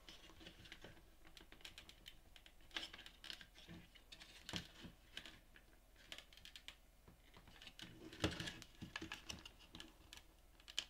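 Faint, irregular small clicks and taps of hands working a circuit board loose from a plastic front panel assembly, with a busier cluster of clicks near the end.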